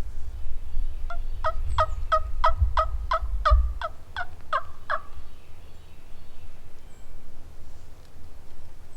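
Turkey yelping: a series of about a dozen even, pitched yelps at roughly three a second, lasting about four seconds, with wind rumbling on the microphone during the first part.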